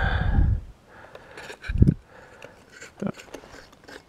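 Handling noise as a glass incandescent bulb is worked in its plastic lamp holder on a wooden board: a loud thump at the start, another about two seconds in, then faint clicks and scrapes.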